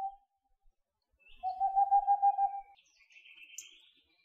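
Boreal owl singing: the end of one song right at the start, then a full song about a second and a half in, a rapid, even run of hoots lasting just over a second. Faint high chirps of small birds follow near the end.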